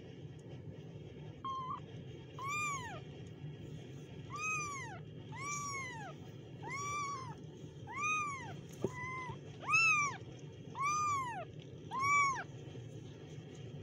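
Very young kittens mewing: about ten short, high-pitched mews, each rising then falling in pitch, roughly one a second, with two shorter flat cries among them. A steady low hum runs underneath.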